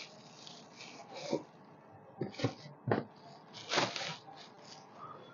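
Clear plastic wrapping crinkling and rustling in irregular bursts, with a few sharper crackles, as a pair of shoes is pulled out of it.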